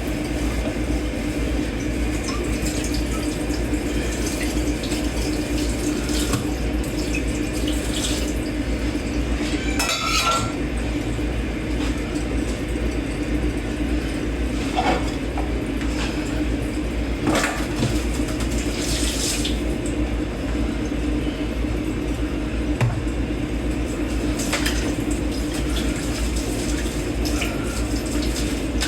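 Tap water running steadily into a kitchen sink while dishes are washed by hand, with occasional clinks of dishes and cutlery.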